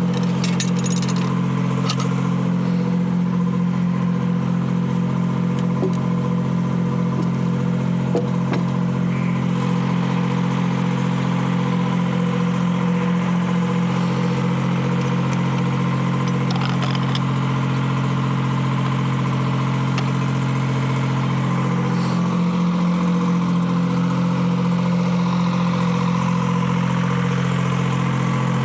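Detroit Diesel 3-71 three-cylinder two-stroke diesel running at a steady speed, driving the sawmill, with a few brief knocks partway through.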